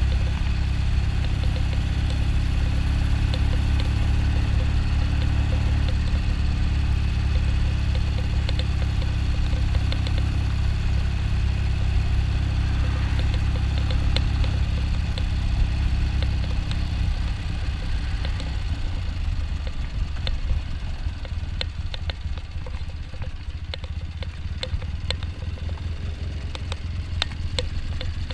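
1972 Triumph Tiger's parallel-twin engine running steadily while under way. About two-thirds of the way through it gets quieter as it eases off, and light ticking comes through.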